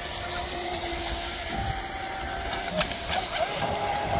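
Electric motors of radio-controlled speedboats whining, their pitch dipping and rising as the boats throttle and turn. A second, lower motor tone is heard early on.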